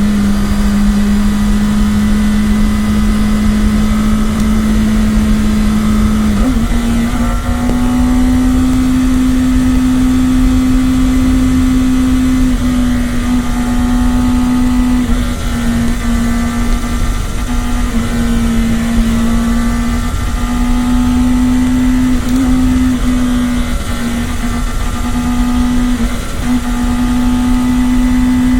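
Kawasaki Ninja ZX-10R's stock inline-four engine running at a steady, fairly high pitch while riding. The note steps up slightly about six seconds in and eases off briefly a few times, over a heavy rumble of wind on the microphone.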